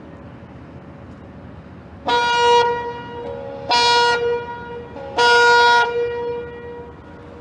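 Boat horn sounding three short blasts about a second and a half apart, each trailing off more quietly, over a steady low hiss.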